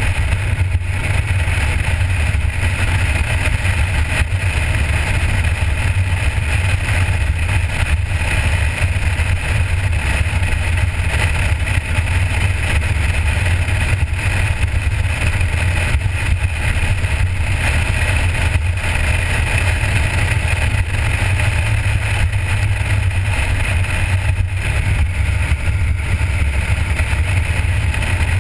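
A 1977 Corvette's V8 running steadily at cruising speed, a constant low rumble mixed with road and wind noise. It is heard from a camera mounted outside on the windshield, so wind on the microphone colours the sound.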